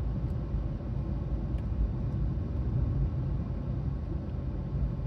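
Steady low rumble of a car being driven, heard from inside the cabin: engine and road noise with no changes.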